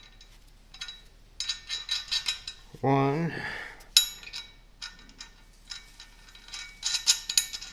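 Steel nuts and bolts clinking and clicking as nuts are threaded by hand onto mushroom-head bolts fixing a trap bar's handle brackets, in irregular bursts with a sharp click about four seconds in.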